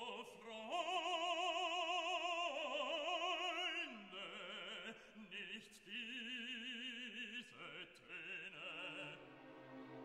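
Background music: an operatic voice sings long held notes with wide vibrato, the melody stepping down in pitch about four seconds in.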